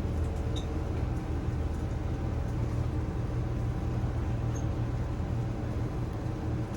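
Fujitsu ducted air conditioner's outdoor unit running, its compressor and condenser fan giving a steady low hum.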